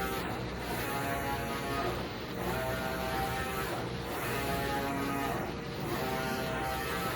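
UV flatbed printer's print-head carriage sweeping back and forth across the glass. Its drive motor whines through each pass, and the whine breaks off briefly at each reversal, about every two seconds.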